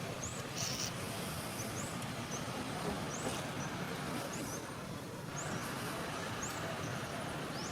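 Forest ambience: a steady hiss with short, high rising chirps repeating about once a second.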